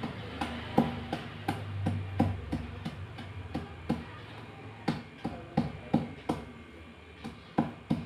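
Slate pencil pieces crushed under a hand-held stone on a stone counter: a run of sharp cracks and crunches, about two or three a second.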